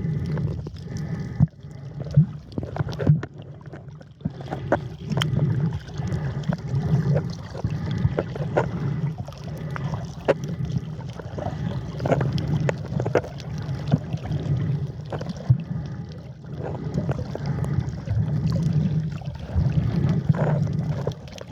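Water sloshing and gurgling around a snorkeler's camera at the sea surface, swelling and ebbing every second or two, with many small clicks and knocks.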